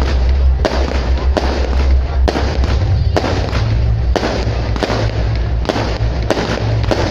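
Fireworks display, with aerial shells bursting in quick succession: about a dozen sharp bangs, one or two a second, over a continuous low rumble.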